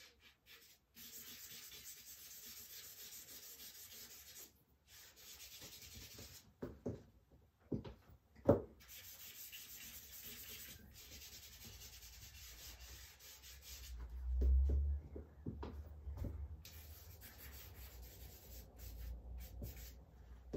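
Charcoal being rubbed into drawing paper on an easel: a hissy rubbing in strokes a few seconds long, with short breaks between them. A few sharp knocks come just before halfway, and a low thud about two-thirds through.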